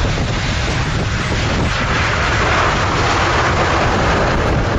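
Boeing 777 freighter on its landing rollout on a wet runway: a loud, steady rush of jet engine and wheel noise with a deep rumble underneath, swelling about two seconds in.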